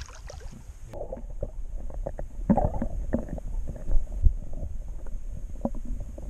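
Water sounds heard through a camera dunked under a lake's surface, beside a hooked bass on the line: muffled gurgling, a low rumble and scattered bubbly knocks. About a second in, the sound turns dull and muffled as the camera goes under.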